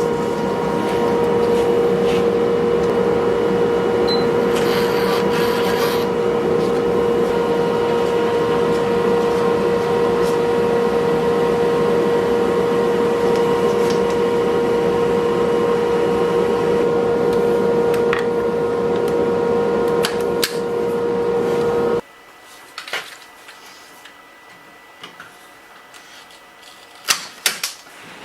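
A motor-driven machine running steadily with a constant hum, cutting off suddenly about 22 seconds in. It is followed by scattered light clicks and knocks.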